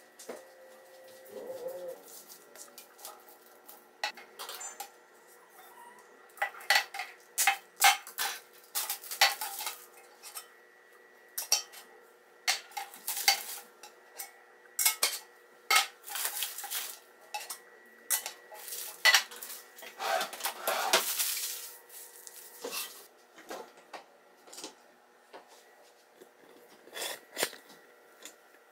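Kitchen storage canisters and their lids being handled and set down: many sharp clinks and knocks in irregular succession, with one longer scrape about twenty seconds in.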